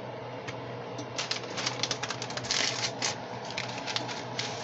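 Crinkling and crackling of a packet of Lipton onion soup mix being handled and opened, a fast irregular run of sharp crackles starting about a second in, busiest around the middle.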